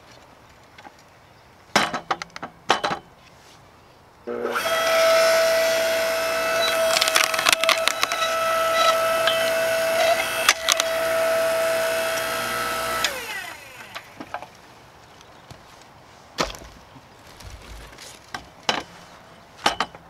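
Small 5-ton electric hydraulic log splitter: its motor and pump start about four seconds in and run with a steady whine while the ram drives a log into the wedge, the wood cracking and splintering as it splits. The motor cuts off about two-thirds of the way through and winds down. A few knocks of wood being handled come before and after.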